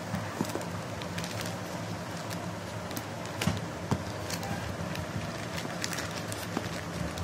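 Plastic courier mailer bag crinkling and crackling as a knife pierces it and a hand pulls the torn plastic apart, with a couple of louder crackles about halfway through. A steady low hum runs underneath.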